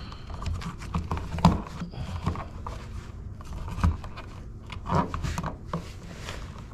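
Work-gloved hands handling and pulling old insulated wires in a wall outlet box: irregular rustling, scraping and small clicks.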